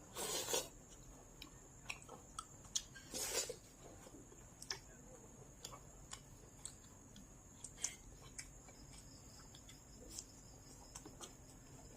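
Close-up eating sounds: scattered soft mouth clicks and smacks of chewing, with two short louder noisy bursts, one right at the start and one about three seconds in.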